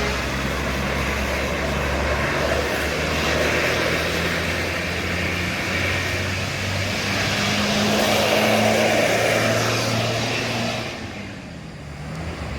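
Road traffic: a motor vehicle's engine passing close by, growing louder to a peak about eight seconds in, then falling away sharply near the end before the next vehicle approaches.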